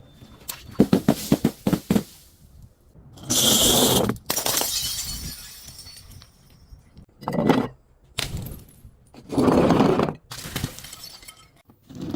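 Glass bottles breaking and crunching: a quick run of sharp cracks, then a loud shatter about three seconds in that trails off over a couple of seconds, followed by four more short crunching bursts.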